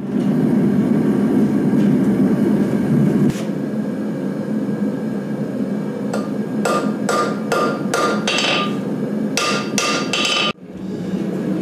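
Hammer forging steel on an anvil: a run of ringing blows, about three a second, starting about halfway through and stopping suddenly near the end. Under the blows and before them is a steady low rumble, loudest at the start.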